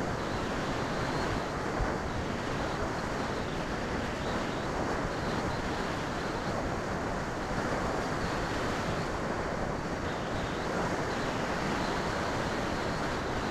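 Steady rush of wind over the microphone of the camera riding on a Skywalker FPV plane gliding with its motor off.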